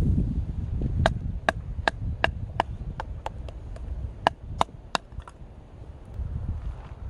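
Wood being chopped by hand to make firewood: about a dozen sharp knocks, two to three a second, that stop a little after the middle. Wind rumbles on the microphone underneath.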